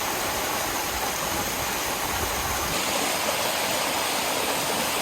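Steady rushing of creek water at a waterfall. The low rumble eases a little under three seconds in.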